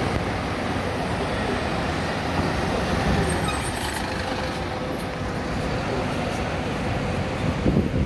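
Diesel city bus driving past close by at low speed, its engine running over the general traffic noise of a bus terminal.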